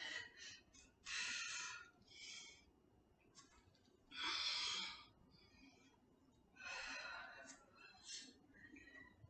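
A woman breathing hard from the effort of abdominal crunches: a series of short, forceful exhales, about one every two seconds, with quiet gaps between.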